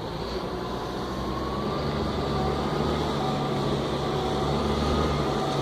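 An engine running steadily: a low hum with a faint higher whine above it, growing slowly louder.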